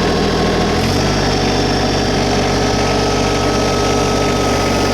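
LS MT125 compact tractor's Yanmar three-cylinder 1.3-litre diesel running steadily at a raised idle. Its speed steps up about a second in, then holds.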